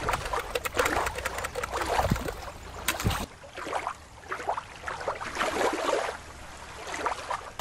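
Shallow river water running and rippling over rocks at the shoreline, with small clicky splashes. About three seconds in, it cuts abruptly to a quieter, duller wash of water noise.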